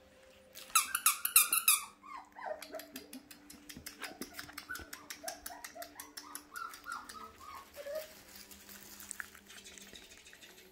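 Young puppies whimpering and yelping: a loud burst of high-pitched yelps about a second in, then a string of short, falling whines, over scattered small clicks.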